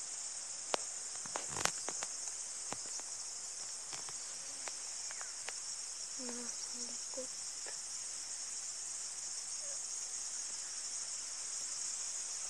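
Dense insect chorus, a steady high-pitched buzz, with a few sharp clicks in the first few seconds and some faint short low tones in the middle.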